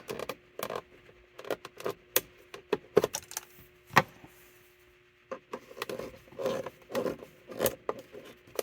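Small hand-tool work at a screw hole: scattered clicks, one sharp snap about four seconds in as flush cutters trim off the zip tie packing the stripped hole, then a run of rubbing and scraping as the screw is turned in tight.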